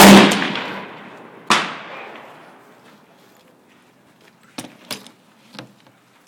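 Browning Automatic Rifle (.30-06) firing: a very loud shot right at the start with a long echoing tail, and another about a second and a half later. A few fainter sharp cracks follow about three seconds after that.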